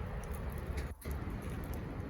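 Wood fire crackling with small, faint, high-pitched pops over a steady low rumble, with a short drop-out about a second in.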